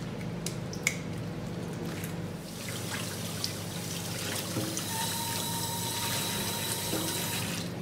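A tap running into a stainless steel sink, the water splashing over a whole fish being rinsed under it. A few light knocks come in the first second; the flow builds and then runs steadily with a thin whine in it, and stops near the end.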